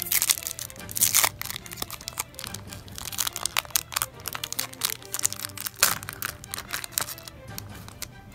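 Foil wrapper of a Yu-Gi-Oh booster pack torn open and crinkled by hand, irregular crackling as the cards are worked out, loudest in the first second or so and again about six seconds in.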